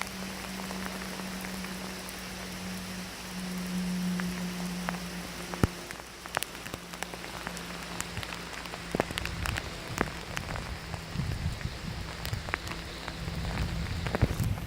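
Steady rain falling, with many individual drops tapping sharply close by. A low steady hum runs under it for about the first nine seconds.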